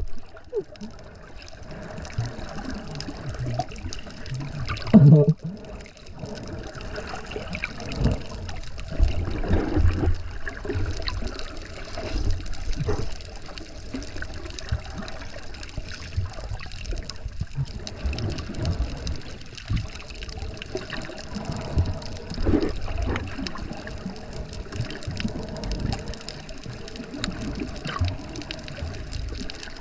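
Sea water sloshing and gurgling around the microphone, with uneven low surges and bumps.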